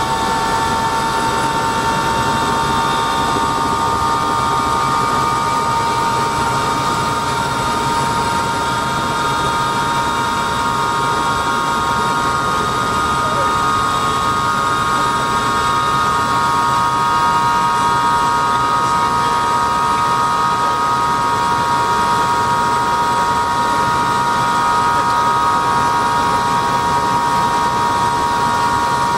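Helicopter running, heard from inside the cabin: a steady turbine whine of several high tones over a constant rushing rotor and engine noise.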